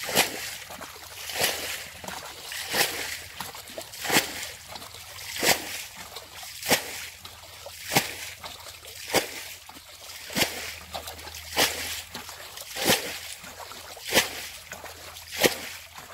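Bailing water out of a shallow muddy ditch with a plastic container: a steady rhythm of scoop-and-throw splashes, about one every second and a quarter, a dozen or so in a row.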